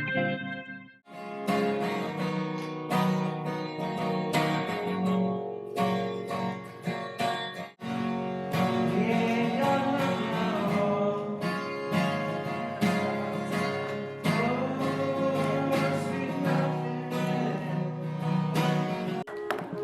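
Background music with plucked guitar, breaking off briefly twice.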